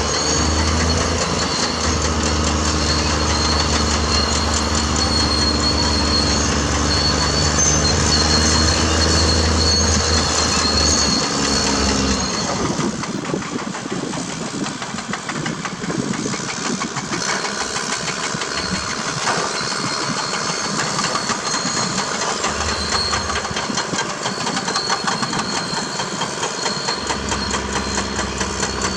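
Caterpillar D6R bulldozer's diesel engine running under steady load with a deep drone. About twelve seconds in the drone falls away and a rattling metal clatter of the machine and its tracks takes over, and the deep drone comes back near the end.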